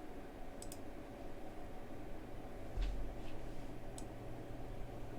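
Computer mouse clicking: a quick double click under a second in, then a few single clicks around three and four seconds, over a low steady hum.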